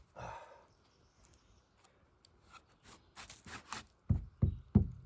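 Knocking on a freshly milled pine board to test whether the ant-bored wood is still sound: about four sharp knocks in quick succession near the end. Before them, faint rustling and handling noises.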